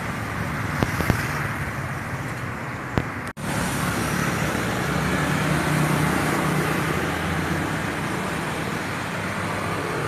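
Road traffic, cars and motorbikes passing, heard as a steady hum with engine noise. A few sharp clicks in the first three seconds and a momentary drop-out about three and a half seconds in.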